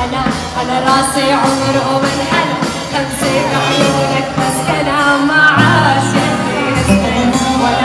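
A woman singing into a microphone over loud amplified band music, recorded live in a hall.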